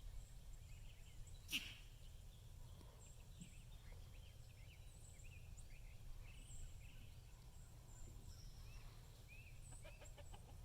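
Faint outdoor ambience: small birds chirp briefly now and then over a low steady rumble. There is a single sharp click about one and a half seconds in.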